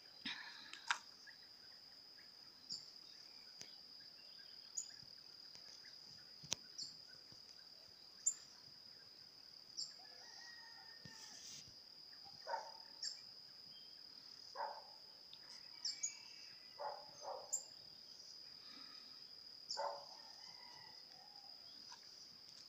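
Crickets keep up one steady high trill, with short bird calls and chirps scattered through it.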